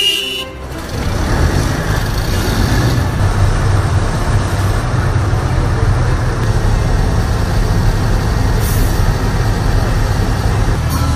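Diesel engines of heavy multi-axle mobile missile launcher trucks running, a steady deep rumble that swells about a second in, with a couple of brief high hisses.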